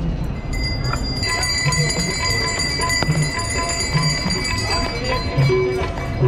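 Brass aarti hand bells ringing rapidly and continuously, several at once, starting about half a second in.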